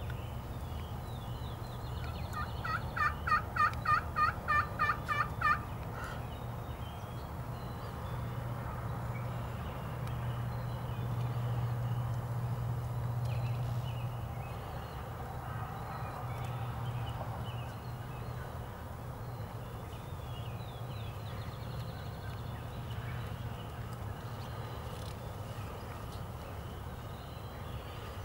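A series of about eleven turkey yelps in a steady, even rhythm, lasting about three seconds from a couple of seconds in.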